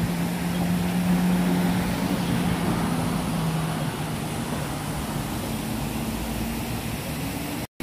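City street noise: a steady rush of traffic with a low engine hum that fades after a few seconds, then cuts off abruptly near the end.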